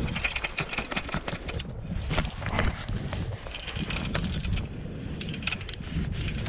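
Fly reel clicking rapidly as its handle is turned to wind in line, over wind buffeting and water lapping against the raft.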